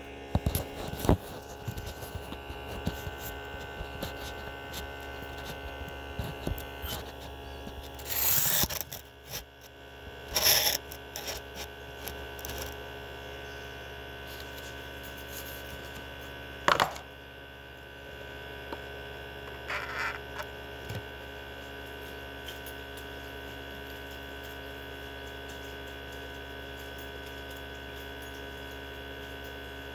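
Mini benchtop centrifuge's electric motor and rotor running at speed, a steady hum, with a few short knocks and scuffs during the first twenty seconds.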